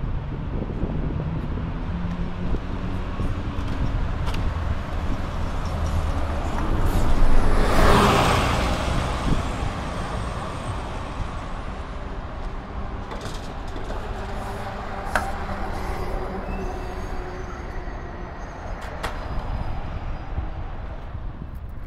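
Street traffic, with a city bus passing close by about eight seconds in, its sound swelling and then fading away, then steady traffic noise.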